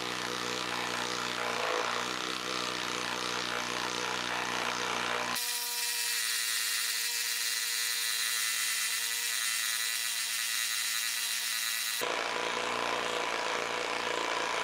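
DeWalt 12-volt brushless impact driver hammering continuously under load as it bores a 1 1/4-inch Speedbor spade bit into a wooden post. The sound turns thinner from about five to twelve seconds in, its low end gone.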